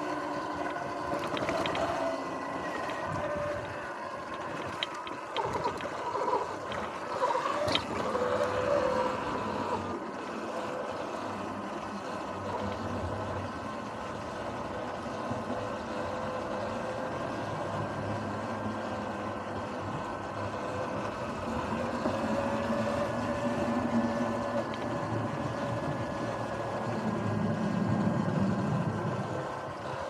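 Electric dirt bike riding along a trail: a steady motor whine that rises and falls in pitch with speed, over tyre noise, with clicks and knocks from the rough ground in the first ten seconds or so.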